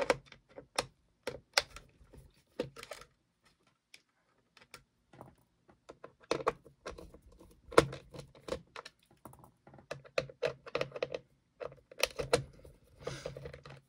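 Hand screwdriver backing out the small screws that hold a turntable's motor control board, making a run of irregular light clicks and ticks. The clicks thin out briefly a few seconds in.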